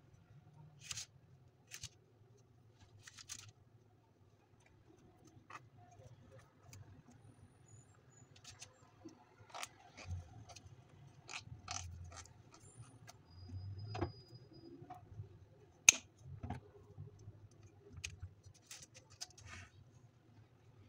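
Hands peeling the green calyxes off eggplants and laying them on parchment paper in a metal tray: scattered soft clicks, small crisp tearing and paper rustles, with one sharp click about two-thirds of the way through.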